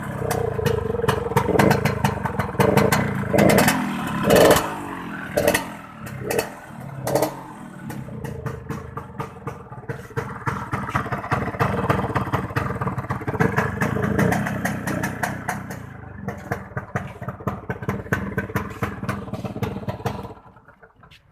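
Yamaha RX-King's 135 cc two-stroke single-cylinder engine running with a rough 'ngorok' (snoring, rattling) sound. The throttle is blipped about eight times over the first several seconds, then the engine runs more steadily until the sound drops away near the end.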